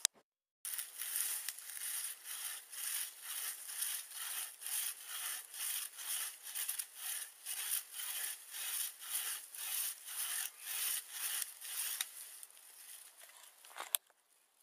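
A bow saw blade in a bucksaw frame built from sticks, cutting through a log in brisk, even push-pull strokes, about two to three a second. The strokes fade away about two seconds before the end, and a single sharp click follows.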